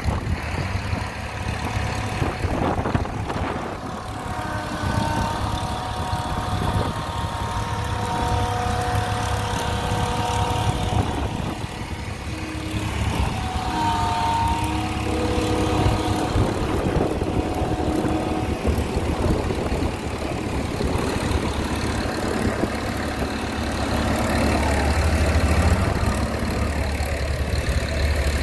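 Engine of a big air compressor running steadily with a low hum while compressed air is blown through a combine. Whistling tones come and go through the middle stretch.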